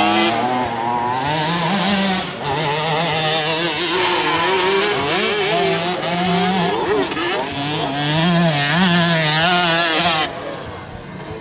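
Motocross bike engine revving hard and easing off over and over, its pitch rising and falling as the rider works the throttle through a corner and up a climb. The engine sound drops away about ten seconds in.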